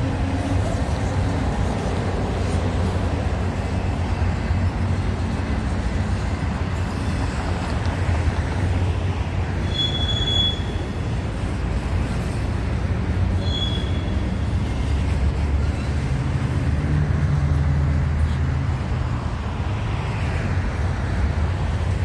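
Freight train rolling past with a steady rumble of railcars on the track. Two brief high wheel squeals come around the middle.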